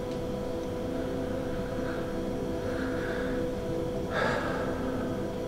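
Soft background music of long held chords, with a short audible breath from the speaker about four seconds in.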